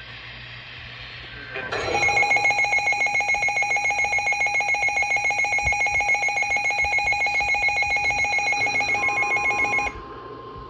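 Electronic emergency alert tone ahead of a weather-radio warning. It begins about two seconds in as a loud, rapidly pulsing electronic tone with several pitches at once, and cuts off sharply near the end. A faint steady tone begins just before it stops.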